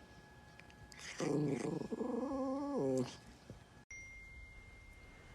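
A dog giving one drawn-out, wavering, whine-like vocal call of about two seconds, starting about a second in.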